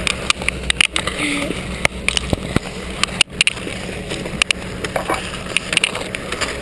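Skis scraping and sliding over packed snow as a skier shuffles along pushing with poles, with frequent sharp clicks and knocks of poles and gear against the body-worn camera.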